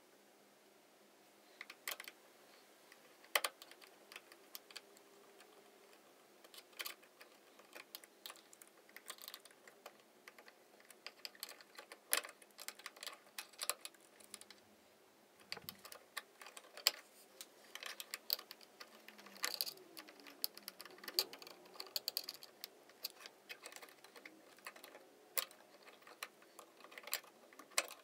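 Screwdriver and screws clicking and scraping against a metal switch box as an old toggle switch is unscrewed and worked out of it. Faint, irregular clicks that come more often from about halfway through.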